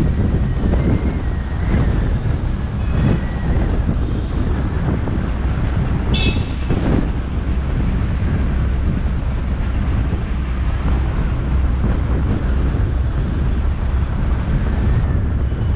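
Steady road and traffic noise from a car driving uphill, heard through a GoPro with wind rumbling on its microphone. A brief high-pitched sound cuts in about six seconds in.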